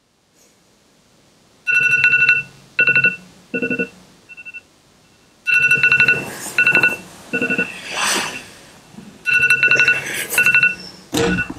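Smartphone ringtone: a phrase of high beeps played three times, about four seconds apart, each phrase a run of beeps that get shorter and fainter. Between the later phrases there is some rustling.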